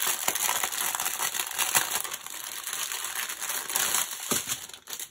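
Clear plastic packaging crinkling and rustling continuously as a strip of small sealed bags of diamond-painting drills is handled and unwrapped. The crinkling stops near the end.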